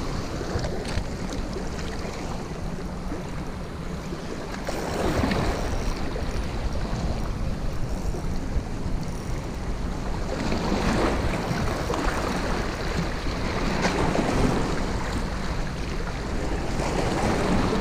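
Sea waves washing onto the shore, the surf swelling every few seconds, with wind buffeting the microphone as a steady low rumble.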